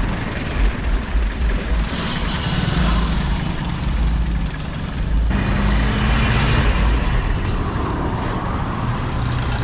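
Road traffic noise: a heavy vehicle's engine running under a steady rumble, with two short bursts of hiss, about two and five seconds in.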